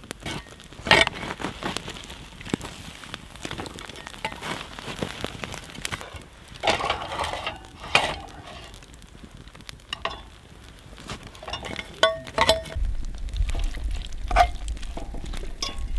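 Meat frying and sizzling in rendered bear fat in a pan, with a utensil scraping and clinking against the pan every few seconds as the food is stirred.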